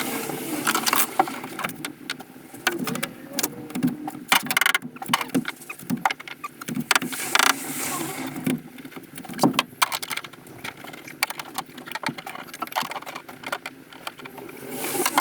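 Irregular clicks, knocks and clatter of hand work, with many sharp short hits at uneven spacing.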